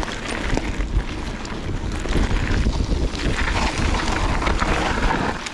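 Mountain bike riding fast down a trail, with wind buffeting the microphone and tyres rolling over the ground. Many small clicks and knocks come from the bike rattling over rough terrain.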